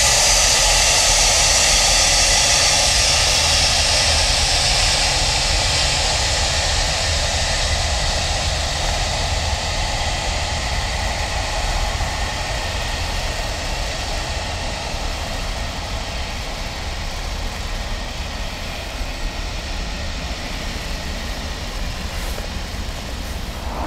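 Boeing 757's twin jet engines running at low power as the airliner rolls past and away along the ground: a steady jet hiss and whine that fades gradually as it recedes.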